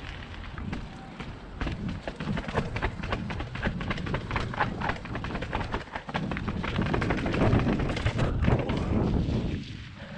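A 2021 Devinci Troy full-suspension mountain bike riding down a set of stairs: a rapid, irregular series of knocks and rattles from the bike over a rumble, heaviest about two-thirds of the way in.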